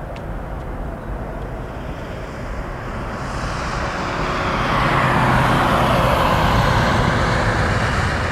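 Airbus A320's twin IAE V2500 turbofan engines at takeoff thrust as the jet climbs away: a broad jet roar that swells louder from about three seconds in and stays strong to the end.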